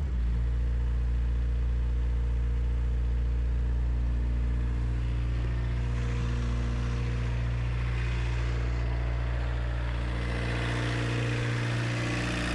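1986 Suzuki Samurai's VW turbodiesel engine running steadily just after a hard start. The engine is worn out, with pitted, scored cylinders and what the owner believes is a broken ring in cylinder four.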